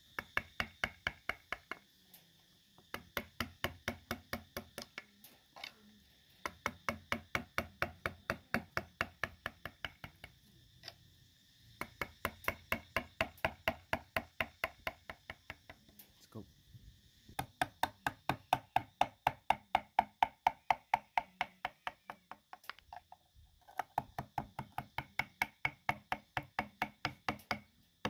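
Wood-carving chisel tapped into wood in quick, even strokes, about four to five a second, in runs of a few seconds with short pauses between. The strokes are loudest a little past the middle.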